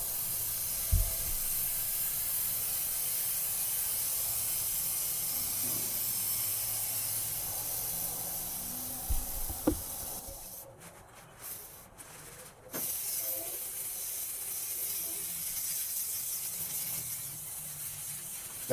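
Oven-and-grill cleaner spray can hissing in long continuous squirts onto a greasy grill. The spray stops briefly a little after ten seconds in, then starts again.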